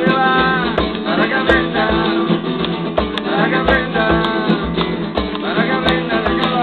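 Live acoustic band music: a strummed acoustic guitar and a hand drum keeping a steady beat, with a flute and a man singing over them.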